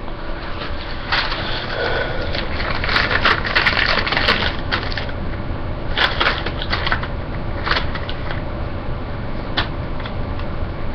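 Paper receipts rustling and crinkling as they are handled and unfolded. The first few seconds are a dense stretch of crinkling, then a shorter burst, then a few single crackles.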